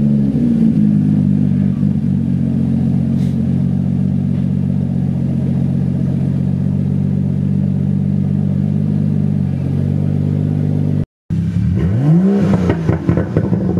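BMW M235i's N55 turbocharged inline-six, its exhaust removed from the downpipe back, running loud and steady just after starting. Near the end there is a single rev that rises and falls.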